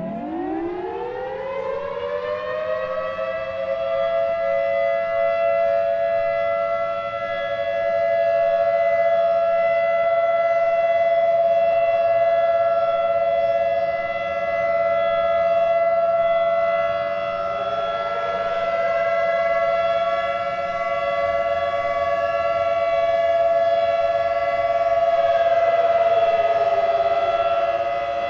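Tornado warning siren winding up from a low pitch into a loud, steady two-tone wail. About two-thirds of the way through, a second rising tone joins it, then slides back down near the end.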